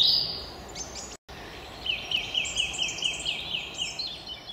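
Songbirds singing over outdoor background hiss. A short descending phrase opens, the sound cuts out briefly a little over a second in, then one bird gives a fast run of about ten repeated high notes lasting about two seconds.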